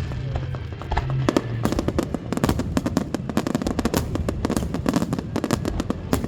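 Fireworks going off in a rapid barrage of sharp bangs and crackles, sparse at first and packing densely after about a second and a half.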